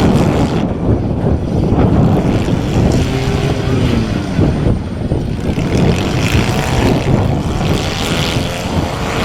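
Engines of compact demolition derby cars revving hard, their pitch rising and falling as the cars accelerate.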